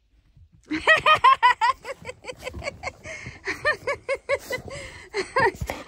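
A person laughing hard in quick, high-pitched bursts of 'ha's, starting under a second in and running on with short breaks.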